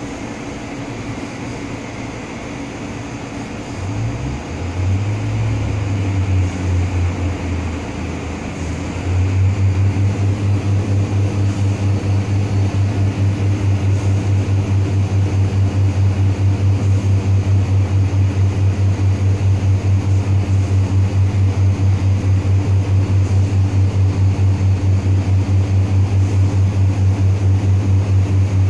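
Northern Rail Pacer railbus's underfloor diesel engine ticking over at the platform, opening up about four seconds in, then from about nine seconds in running loud under power with a steady low throb and fast, even pulsing as the train pulls away.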